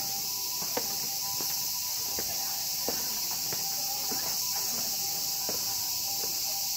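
A steady, high-pitched insect chorus, with walking footsteps about every two-thirds of a second.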